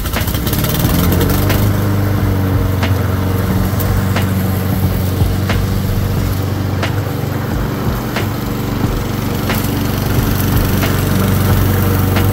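Walk-behind gas lawn mower engine starting and running up to speed within about a second, then running steadily while cutting grass. It is a test run after an oil change and a blade reinstall.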